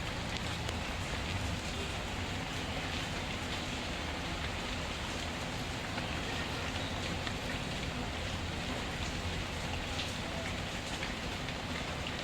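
Steady rain falling, an even hiss with scattered drop patter. It is mixed with a few faint snaps from a crackling wood fire.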